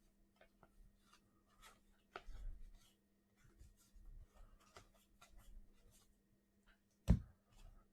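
Trading cards being handled, with light scattered rustling and small clicks and one sharper knock about seven seconds in, over a faint steady hum.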